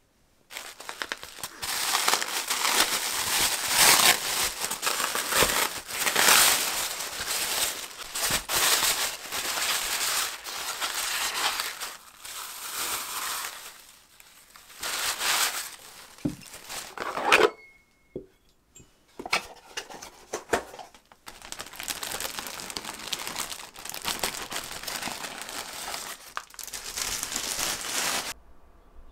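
Parcel wrapping crinkling and tearing as it is unwrapped by hand, in long rustling stretches with a couple of short pauses. A few brief clicks and squeaks near the middle come from the styrofoam packing insert holding the glass candlestick.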